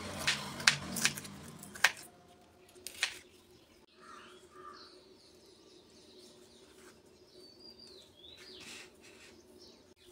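Kitchen knife chopping green bell pepper on a wooden cutting board: about five sharp chops over the first three seconds. After that it goes quieter, with a few faint bird chirps in the background.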